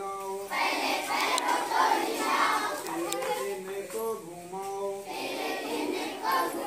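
A group of schoolchildren chanting an action song loudly in chorus, alternating with a single voice singing the lines.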